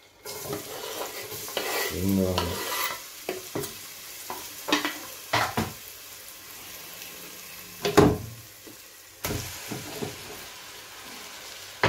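Diced red onion sizzling and frying in hot oil in a pot, a steady hiss that starts just after a knife scrapes the onion off a wooden chopping board. A few sharp knocks of utensils and pot sound through the sizzle; the sizzle picks up again near the end as raw minced meat goes into the pot.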